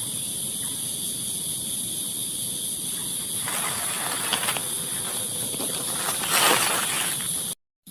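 Night insect chorus, crickets trilling steadily at a high pitch. A broad hiss-like noise swells from about halfway, is loudest near the end, and then the sound cuts off abruptly.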